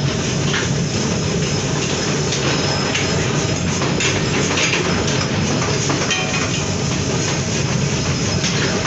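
Flywheel-driven mechanical power press running in a forge shop: a steady mechanical clatter from its flywheel and gearing, with a few faint metal knocks as hot blanks are pressed.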